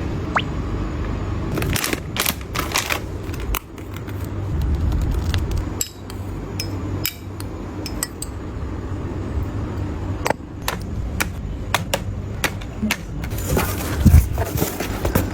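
Packaged snacks being unpacked and set into storage containers: a run of scattered taps, clicks and light clinks of packaging and containers being handled, over a steady low rumble.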